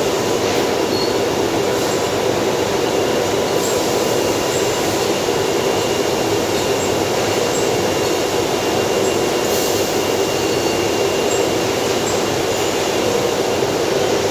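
Steady mechanical rumble at an even level, with no strokes or pauses.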